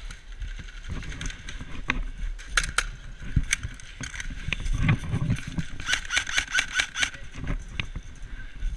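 Airsoft guns firing: scattered single shots, then a quick string of about seven shots about six seconds in.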